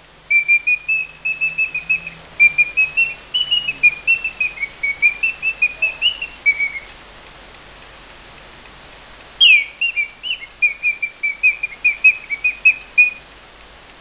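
Eschle mechanical singing-bird movement whistling through its restored bellows: two phrases of quick chirping notes that step up and down, separated by a pause of a few seconds, the second phrase opening with a downward swoop.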